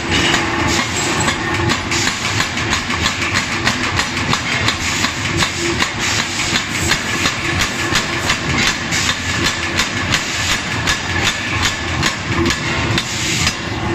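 Power hammer forging a red-hot hatchet blank held in tongs: a fast, even run of heavy blows, about four a second, over the machine's continuous running noise.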